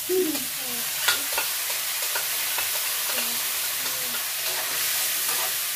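Ground pork being sautéed in hot oil in a wok, sizzling steadily, with a few sharp clicks.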